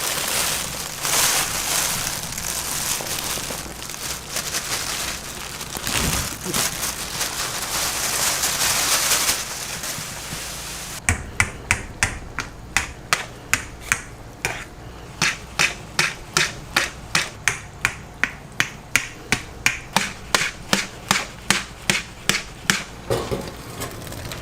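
Steady sizzling hiss of pancake batter frying on a hot griddle. About halfway through it gives way to a long run of sharp, even knocks, about three a second, of a knife chopping on a cutting board.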